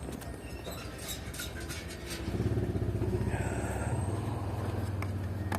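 An engine running steadily, coming in about two seconds in, after a few light clicks.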